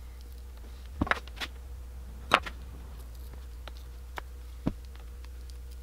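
Scattered light clicks and taps, about seven of them with the sharpest a little past two seconds in, as hands work a two-part silicone mold apart on the bench, over a steady low hum. The mold is not separating cleanly on its parting line.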